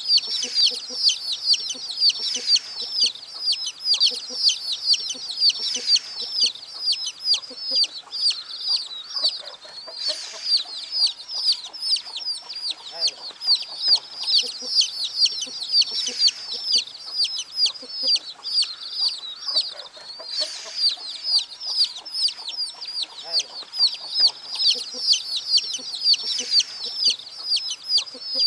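A shed full of chicks peeping without a break, many high-pitched cheeps overlapping.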